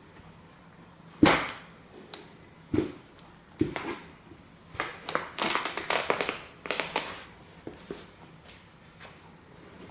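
White Nike Air Force 1 sneakers stomping and trampling a plush toy dinosaur on a wooden floor. A hard stomp lands about a second in, followed by two more stomps, then a couple of seconds of quick rustling and scuffing as the soles grind the torn fabric and stuffing, easing off near the end.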